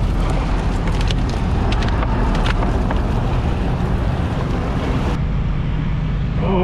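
Four Yamaha 300 outboard motors running steadily, mixed with churning wake water and wind on the microphone. The rushing hiss cuts off abruptly about five seconds in, while the engine hum carries on.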